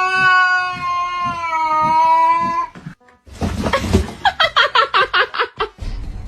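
A cat yowling in one long, drawn-out call that holds a nearly steady pitch and stops about two and a half seconds in. After a brief pause comes a burst of noise, then a quick run of short cries, about six a second.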